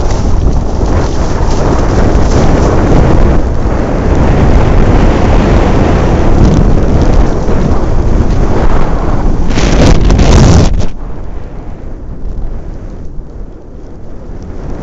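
Wind buffeting the microphone of a skier's camera during a fast powder descent: a loud, steady rush with a brief louder gust about ten seconds in. The rush drops off sharply about a second later and stays much quieter as the skier slows.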